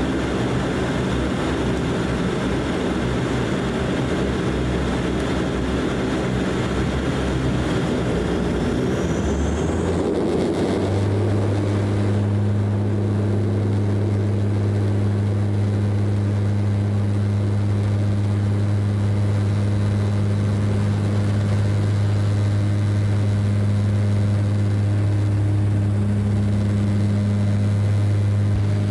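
Bombardier DHC-8 Q400's turboprop engines and six-bladed propellers heard from inside the cabin as power comes up for takeoff. A rising whine about nine seconds in gives way to a steady deep propeller drone through the takeoff roll.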